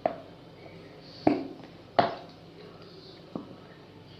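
Plastic knocks as a bottle of coloured glue is emptied into a container: three sharp knocks in the first two seconds and a fainter one later.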